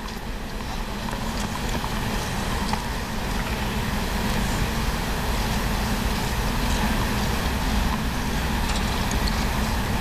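Steady static noise on an off-air TV recording: an even hiss with a heavy low rumble underneath, growing a little louder over the first few seconds.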